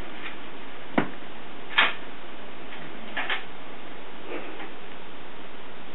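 Steady hiss with a few light, irregular clicks and taps, four in all over about five seconds.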